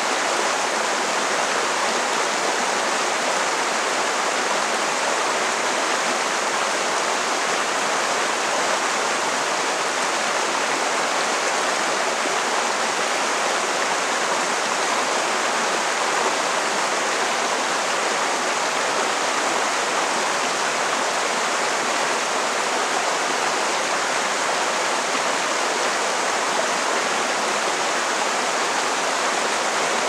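A rocky mountain stream rushing over boulders in small cascades: a steady, unbroken rush of water.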